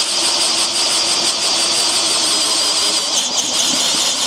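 DeWalt DCD709 cordless drill on low gear (speed 1), boring a 30 mm wood auger bit into a thick block of timber: a steady motor whine over the noise of the bit chewing through the wood.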